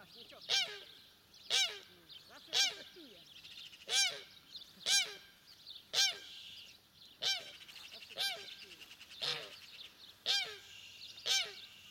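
Domestic geese honking over and over, about one loud honk a second.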